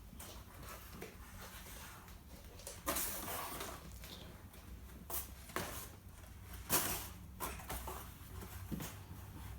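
Scattered light knocks and rustles of a cardboard box being handled and carried, over a low room hum.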